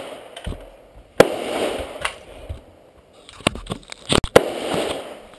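AR-15 rifle shots: two loud reports about three seconds apart, each with a long echoing tail. Several fainter sharp cracks come just before the second shot.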